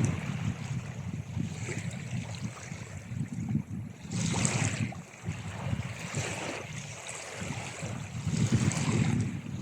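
Sea waves washing onto a shore: a steady low rumble of surf with surges of hiss as waves break, one about four seconds in and a louder one near the end.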